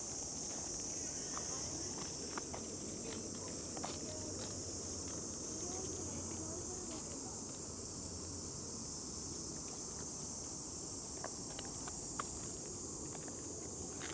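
Steady, high-pitched chorus of insects, with a few faint scattered clicks.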